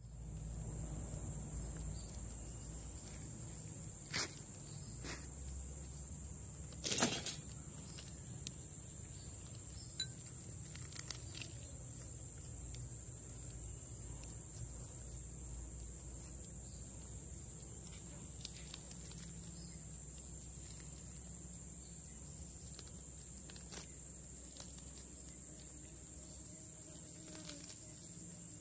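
Insects droning steadily in a high, even pitch. Over it come a few short clicks and knocks as roasted meat is pulled apart by hand over a plate, the loudest a brief cluster about seven seconds in.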